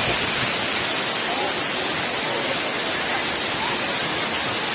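Waterfall water falling and splashing in a steady rushing hiss, with faint distant voices.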